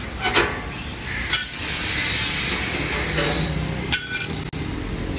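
Steel offcuts and hand tools clinking as they are handled on the ground: three sharp metallic clinks with short ringing, over a steady hiss.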